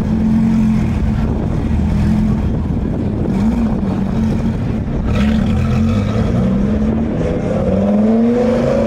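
Lamborghini Gallardo's V10 engine idling with a steady drone, then revving up with rising pitch as the car pulls away near the end.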